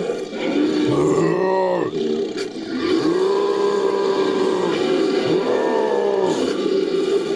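Made-up creature sound effect: a string of deep, drawn-out roars like a lion's, each rising and falling in pitch. The longest one runs about two seconds in the middle of the string.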